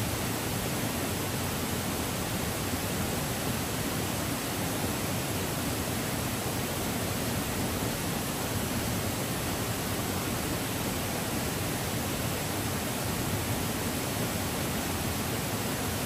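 Waterfall: a steady, even rush of falling and splashing water.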